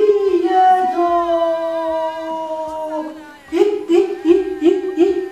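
A woman wailing in distress: one long drawn-out cry falling slowly in pitch, then a string of short sobbing cries, about three a second.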